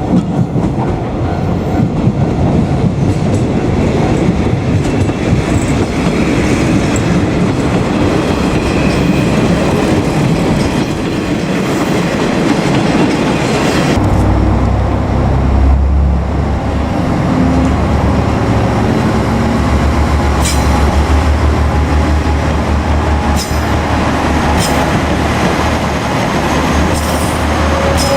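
Diesel railcar train on the move, wheels rolling on the rails. About halfway through a deep, steady engine drone comes in, and a few sharp clicks follow later on.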